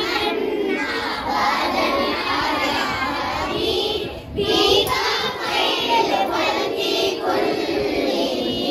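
Young girls' voices singing a naat, an Urdu devotional recitation, with a brief pause about four seconds in.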